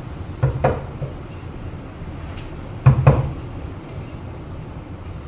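Deye inverter's casing clunking against its wall-mounting bracket as it is hung and seated: a pair of knocks about half a second in, then a louder pair about three seconds in.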